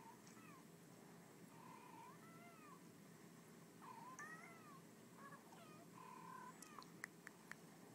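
Several faint cat meows and chirping calls, each rising and falling in pitch, played from a cat video through a laptop's small speakers. Three sharp clicks near the end.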